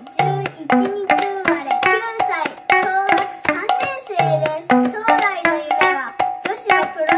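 Background music with busy, quick percussion hits and a repeating melodic line of gliding tones.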